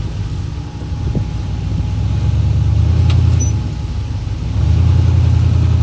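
Off-road rock-crawling rig's engine running under load, swelling louder with throttle twice, about two seconds in and again near the end.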